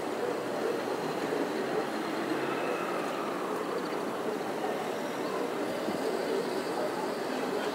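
Steady, even wash of distant city traffic noise, with no single event standing out.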